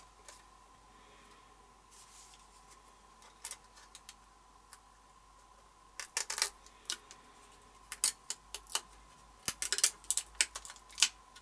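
Protective plastic film being peeled off a small plastic part, giving sharp crackling clicks. They are scattered at first and come thick and fast from about halfway through.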